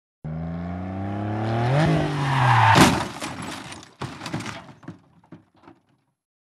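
Car crash sound effect: an engine revs up, rising in pitch for about two and a half seconds, then a loud smash with breaking glass. A second hit follows about a second later, and debris clatters and tinkles as it dies away.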